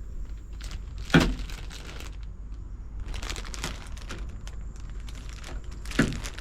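Handling noises: rustling and light clicks, with two louder knocks, one about a second in and one near the end.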